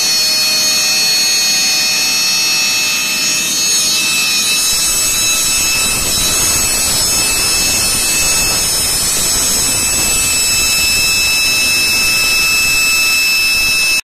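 DENAIR DWW 185 oil-free air compressor running under test: a loud, steady machine noise with several steady high-pitched whining tones. A deeper rumble fills in about five seconds in.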